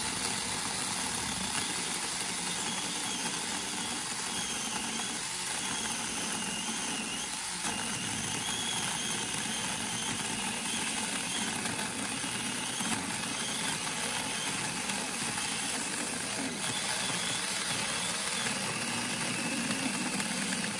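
Cordless mini chainsaw running steadily as its chain cuts through a green log without bogging down or stalling. The saw is powered by freshly fitted 3000 mAh 18650 lithium cells.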